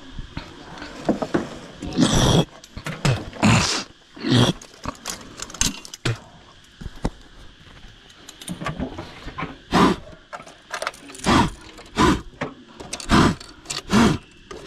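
Irregular metallic knocks, clanks and rattles from handling a steel fibre-optic cable cabinet and its cables, including the door being unlatched and opened.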